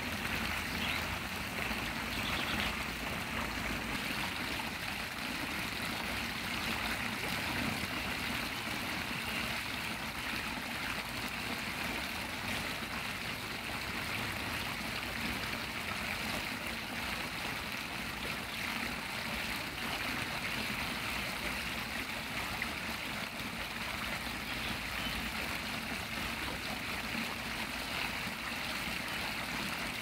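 Running water of a small stream, a steady, even sound.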